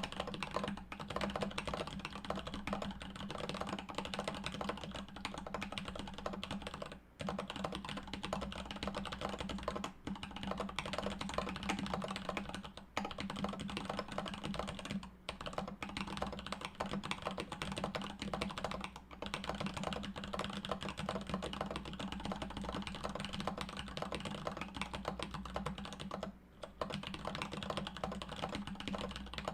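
Continuous fast typing on a 40% custom mechanical keyboard with Durock Sunflower T1 tactile switches, DSA keycaps and a polycarbonate plate, giving a clacky keystroke sound. The rapid run of key clicks breaks off for a few brief pauses.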